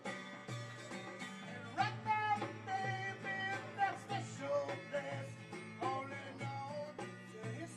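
Live acoustic music: a strummed acoustic guitar with a goblet hand drum (doumbek) beating a steady rhythm under it.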